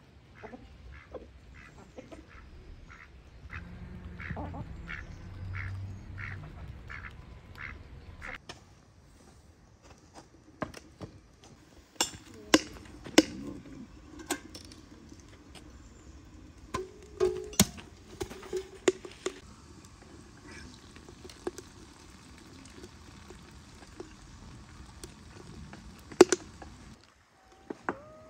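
Poultry in a yard calling in an even run of short calls, about two a second, for the first several seconds. Then metal clanks and knocks as a samovar is handled, followed by a steady hiss that stops abruptly near the end.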